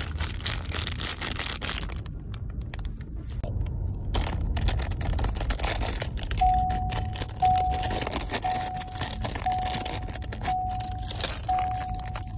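Plastic toy packaging crinkling and crackling as it is torn open and handled. About halfway through, a car's warning chime starts beeping at a steady pitch, six beeps about a second apart.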